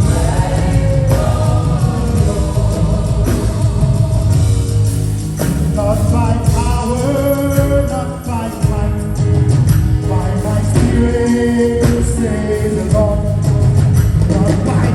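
Live gospel worship music: a band with drums and bass playing under voices singing held, sustained notes.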